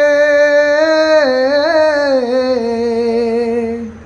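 A man singing a Bengali devotional song solo and unaccompanied, drawing out the last syllable of a line: one long held note that after about a second wavers through a slow falling run and stops just before the end.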